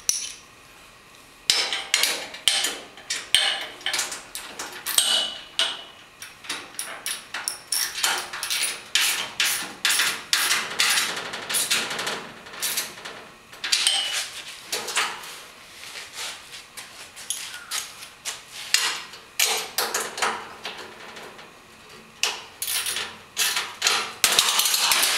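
A 7/16 wrench tightening the mounting bolts of a sheet-metal backsplash and steel tool rack: a rapid series of sharp metallic clicks and knocks, several a second, starting about a second and a half in, with brief metal ringing now and then.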